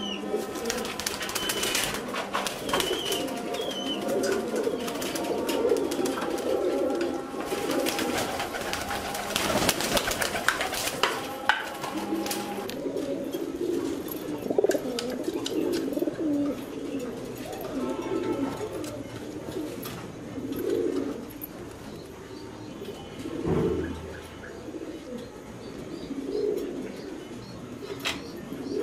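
Caged fancy pigeons cooing, a run of low, repeated coos from several birds. Scattered sharp clicks and rustles come in among the coos, thickest in the first half.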